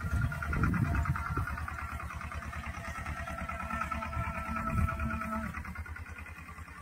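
Swaraj 724 tractor's two-cylinder diesel engine running steadily under load while pulling a disc harrow through the soil, with an even, rapid beat, fading toward the end.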